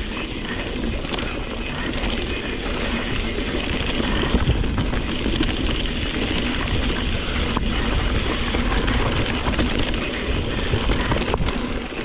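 Wind buffeting the microphone of a mountain bike ridden fast down a dirt trail, over a steady rush of tyre noise, with a few sharp knocks and rattles from the bike over bumps.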